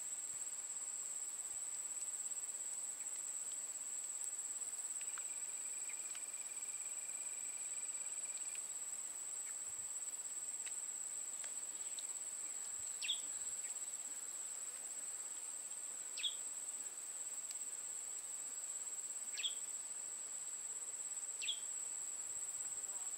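Insects trilling in a steady high-pitched drone, joined by four short, high chirps in the second half.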